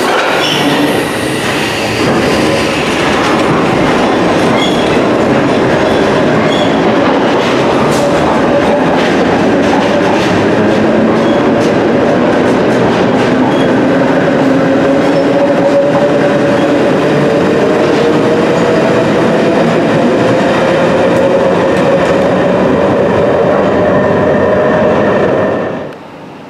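London Underground battery-electric locomotives hauling an engineering train of flat wagons through a Tube platform: a steady rumble and clatter of wheels on rail, with a drawn-out whining tone that slowly rises in pitch.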